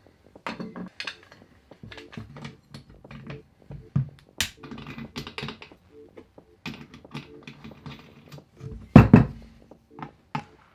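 Clicks, knocks and light scrapes of angle grinder parts being handled and fitted together: the steel wheel guard clamped onto the gearbox head and the side handle screwed in. There is one louder knock about nine seconds in.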